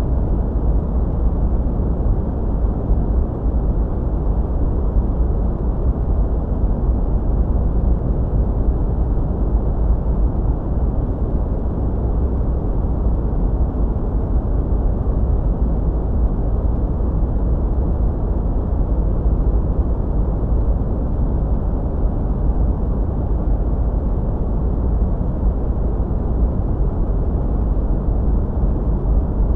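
Steady sleep noise track: an even, deep rumbling hiss, heavy in the bass with almost no treble, unchanging throughout.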